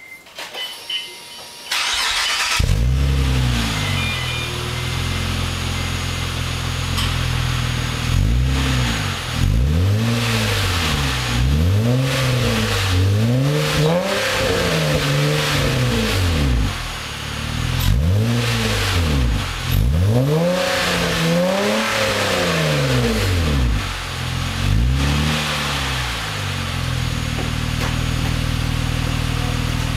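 A 2007 Acura TL's 3.2-litre V6, breathing through an RV6 J-pipe and true-dual catback exhaust, starts a couple of seconds in after a few faint clicks and settles into a steady idle. From about a third of the way through it is blipped repeatedly, each rev rising and falling quickly, before it drops back to a steady idle near the end.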